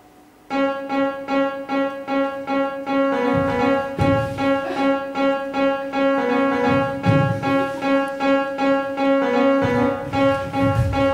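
Instrumental music starts about half a second in: one sustained note pulsing about two and a half times a second, joined from about three seconds in by a second note and low thumps.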